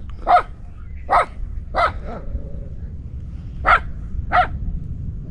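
A dog barking at donkeys in short, sharp barks: three quick barks, a pause, then two more.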